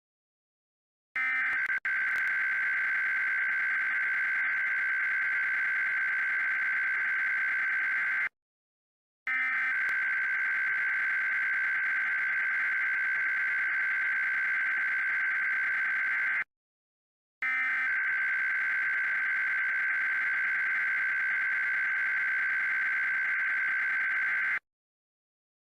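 Emergency Alert System SAME header: a high-pitched digital data tone sent three times, each burst about seven seconds long, with about a second of silence between. This is the coded header that opens an emergency alert broadcast.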